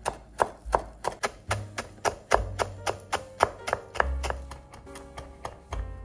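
Steel kitchen knife chopping fresh parsley on a wooden cutting board: quick, even chops about three to four a second, over background music.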